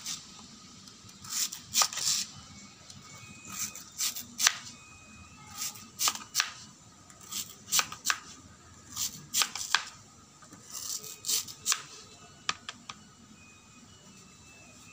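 Knife slicing a raw banana stem into rounds on a plastic cutting board: short crisp cutting strokes in groups of two or three, about one group every one and a half seconds, stopping near the end.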